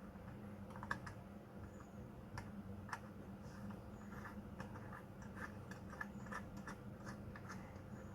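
Light, irregular clicks and scratches from small objects being handled. The sharpest click comes about a second in, and a quicker run of them follows in the second half, over a low steady hum.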